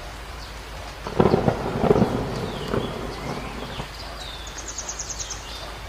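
Steady heavy rain, with a sudden crack of thunder about a second in that rumbles and fades over the next two or three seconds. Small birds chirp through the rain, one giving a fast high trill near the end.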